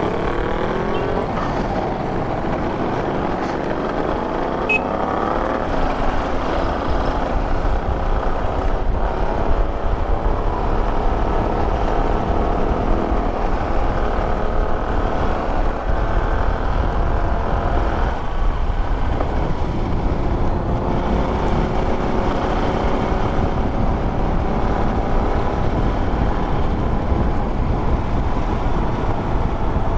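Motorcycle engine running on the move, its pitch rising and falling as it speeds up and changes gear, with wind rushing over the microphone.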